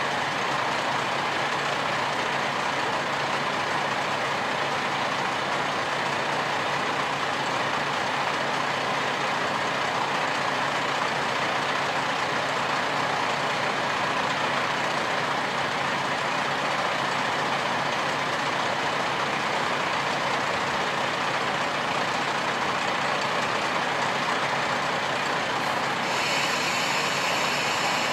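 DMF15HSA-DI diesel engine of a stationary KiHa 40-series railcar idling steadily. Near the end a higher hiss joins in and the sound grows a little louder.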